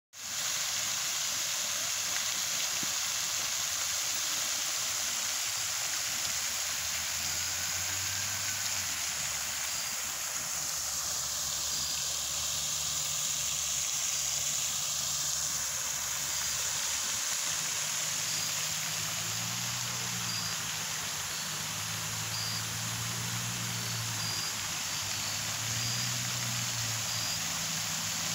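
Pond fountain spray falling back onto the water: a steady rushing splash, with a faint low hum underneath.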